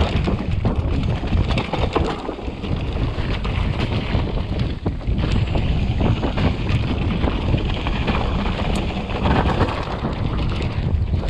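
Hardtail mountain bike (Raleigh Tokul, 27.5-inch) ridden fast down a rough dirt trail: tyres rumbling and the frame and parts rattling with many small knocks over roots and rocks, under heavy wind noise on the microphone.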